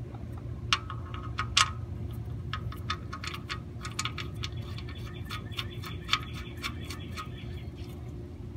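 Sharp metallic clicks, then a quick run of ratcheting ticks, as the oil drain bolt is turned back into the aluminium oil pan with a wrench. A steady low hum runs underneath.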